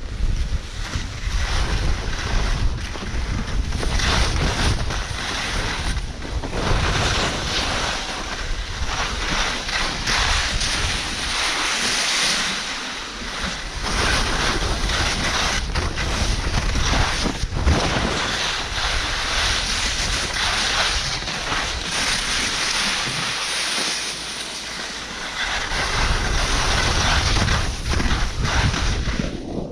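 Wind rushing over a GoPro Hero 8 Black's microphone during a fast downhill run, mixed with the scraping hiss of sliding over packed snow, uneven with many short scrapes and bumps. The sound is spoiled by snow in the microphone.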